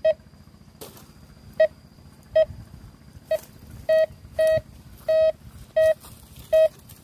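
Metal detector beeping, signalling a buried metal target: nine short beeps at one mid pitch in about seven seconds, irregularly spaced, with two held a little longer near the middle.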